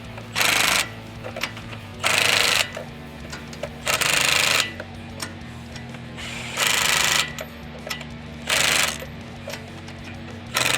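Milwaukee M12 Fuel 3/8-inch stubby cordless impact wrench hammering in five short bursts of about half a second each, a second or two apart, set to its first setting to snug truck lug nuts.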